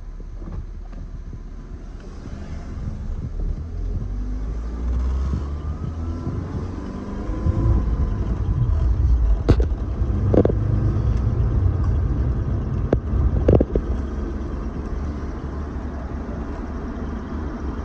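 A small pickup truck's engine pulling the truck along the road, heard from inside the cab, its pitch rising as it accelerates over the first several seconds. A few sharp knocks sound about halfway through.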